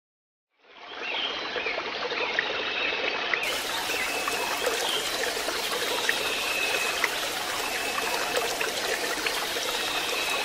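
Steady sound of running water, like a trickling stream, fading in about a second in and fading out at the end.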